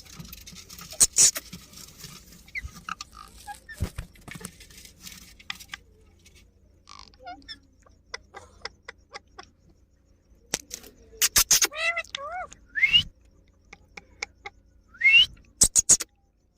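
Indian ringneck parakeets giving short rising squawks, a few about two-thirds of the way through and again near the end, among scattered clicks and taps.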